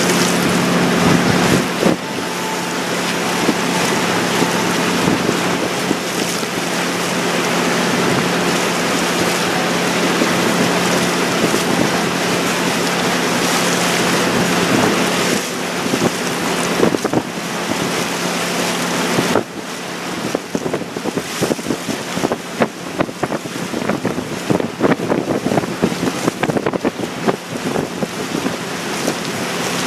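Sightseeing boat under way: a steady engine hum with water rushing along the hull and wind on the microphone. About two-thirds of the way through, the sound drops a little and turns choppy, with wind buffeting the microphone.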